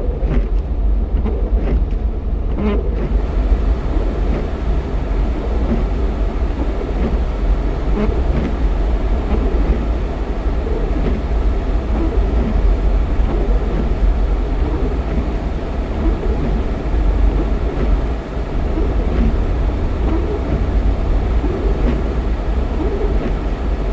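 Jeep XJ driving: a steady low engine and road rumble, with a few light clicks in the first few seconds.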